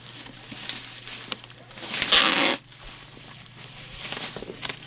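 Plastic or paper parcel packaging being torn open: one sharp rip about two seconds in, with light rustling and small clicks around it.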